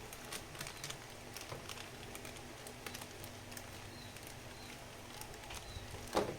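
Light scattered clicks and taps of a plastic figure and its packaging being handled, with a few faint, short high chirps in the second half and a louder thump near the end.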